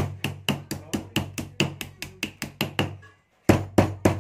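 Small hammer rapidly tapping steel E and I laminations into a small transformer's core, about six light blows a second. The blows pause briefly about three seconds in, then resume.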